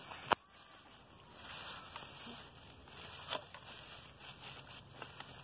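Bypass loppers cutting through climbing-rose canes at ground level: a sharp snip near the start and a softer one about three seconds later.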